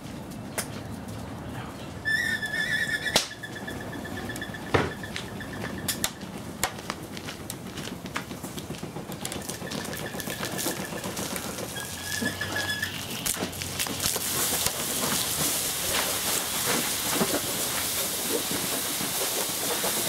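Burning CRT television crackling with scattered clicks and a few sharp pops, and a thin high whistle twice. From about 14 seconds in, a steady hiss builds as a garden hose sprays water onto the burning set and turns it to steam.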